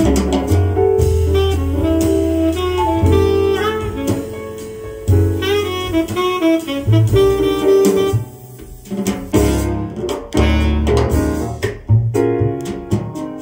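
Jazz record playing back on a hi-fi: a saxophone leads the melody over bass and drums, dropping briefly quieter about eight and a half seconds in before the band comes back in.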